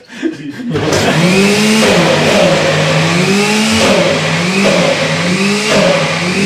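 Countertop jug blender running, blending a thick, creamy cheesecake filling. The motor starts about a second in, and its pitch wavers up and down about once a second as it works through the mixture.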